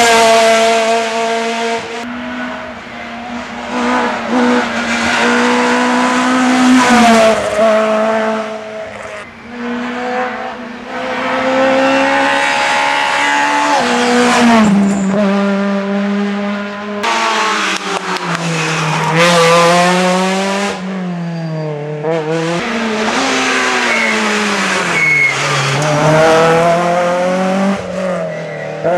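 Citroën C2 R2 rally cars' four-cylinder engines revving hard as each car passes, the pitch climbing and dropping again and again with gear changes and lifts for the corners. Several cars in turn, with abrupt cuts between the passes.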